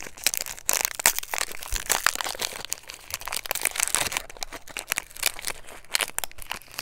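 Foil wrapper of a Pokémon trading card booster pack crinkling and tearing as it is opened by hand: a dense, continuous run of crackles and rustles.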